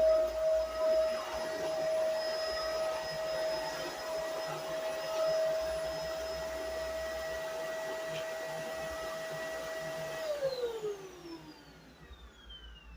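Vacuum cleaner running with a steady motor whine, switched off about ten seconds in, its pitch falling as the motor spins down.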